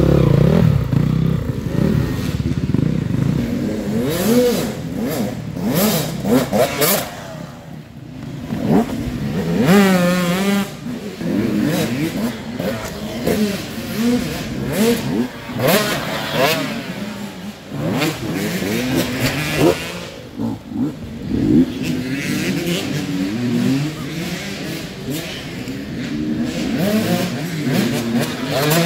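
Off-road racing motorcycle engine revving hard and then dropping back, over and over, its pitch rising and falling every second or two as the throttle opens and shuts.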